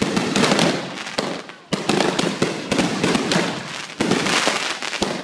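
Multi-shot consumer fireworks cakes firing: a dense, rapid string of sharp bangs and crackles. Fresh volleys start about two seconds in and again about four seconds in, each fading off before the next.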